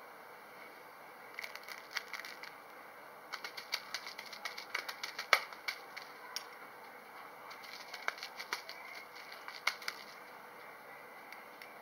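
A cat batting and scuffling a bird toy, making irregular flurries of quick clicks and rustles with one sharper knock about halfway through; it sounds like a bird flapping.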